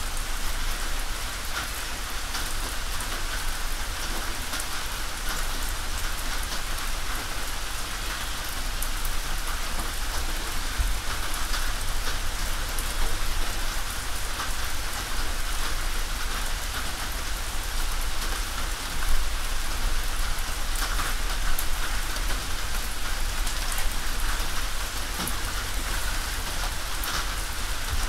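Steady rain falling on a tin roof: a dense, even patter of drops with scattered sharper drip clicks, and one louder hit about two-thirds of the way through.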